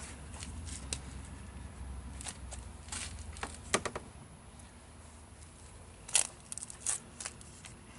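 Scattered clicks, knocks and rustles of hands and parts being handled in a car's engine bay, with a low hum in the first couple of seconds.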